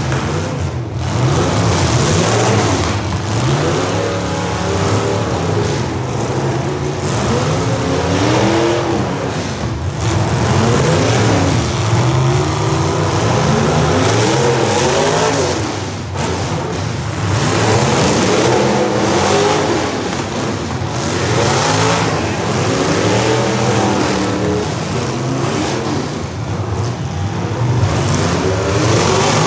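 Several demolition derby cars' engines revving up and down at once, overlapping as the cars accelerate and back off, with a few sudden bangs.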